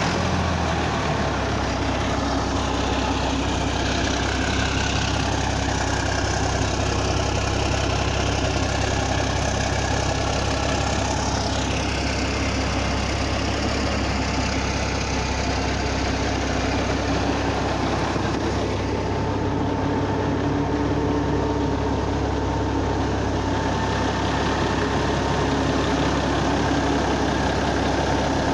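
Caterpillar diesel engine of a Ford LT9000-series truck idling steadily just after a cold start.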